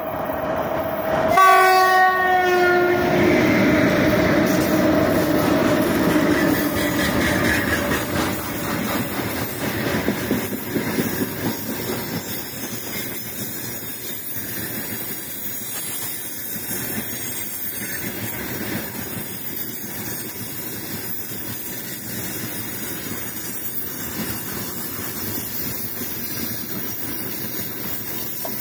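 The horn of a 3ES5K 'Ermak' electric locomotive sounds a single note, then just over a second in a louder, fuller horn chord that drops in pitch as the locomotive goes by. The freight train's open wagons then roll past with a steady rumble and the clatter of wheels on the rails.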